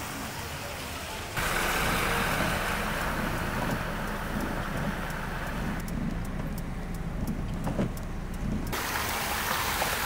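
Cars passing on a flooded, rain-soaked road: engines running and tyres hissing through standing water. The sound changes abruptly a little over a second in, goes duller near six seconds, and opens up again near nine seconds.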